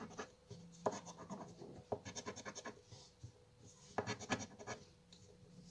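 Krzyżówka XXL scratch-off lottery card being scratched with a small round scraper: three short bursts of quick rubbing strokes with pauses between.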